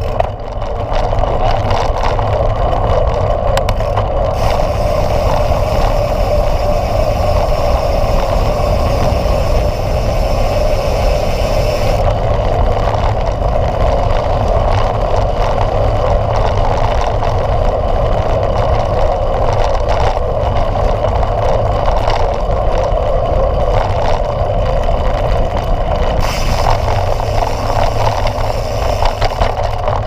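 Mountain bike rolling along a dirt road at speed: wind rushing over the handlebar-mounted camera's microphone, mixed with the tyres' rumble on the dirt, a loud, steady noise.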